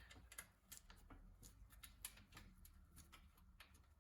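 Near silence with faint, irregular light clicks and taps of small bicycle parts being handled and worked loose.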